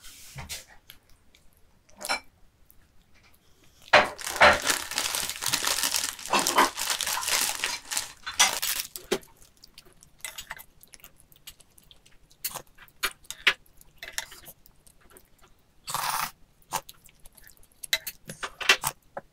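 Eating sounds at a table: a paper bread bag rustling and crinkling for several seconds, then scattered clicks and scrapes as a wooden spoon scoops from a pot, with chewing in between.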